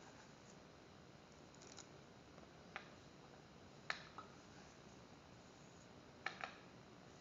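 Near silence: faint room tone with a handful of scattered faint clicks, the sharpest about four seconds in.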